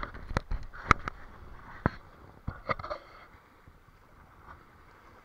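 Small waves splashing and slapping against a stone-paved shoreline, with several sharp splashes in the first three seconds, the loudest about a second in, then only a faint wash of water.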